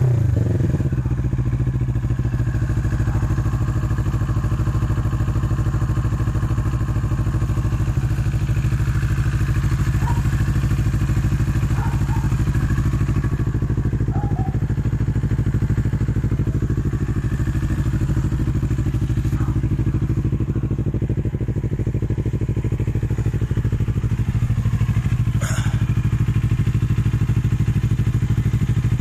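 CFMoto NK400 motorcycle idling steadily through an Akrapovic twin-pipe exhaust, just after a rev dies back down at the start.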